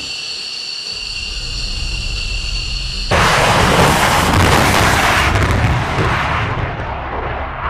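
F-15E Strike Eagle's twin jet engines whining steadily with several high tones. About three seconds in, this switches abruptly to the loud roar of an afterburner takeoff run, which thins out near the end as the jet lifts off and climbs away.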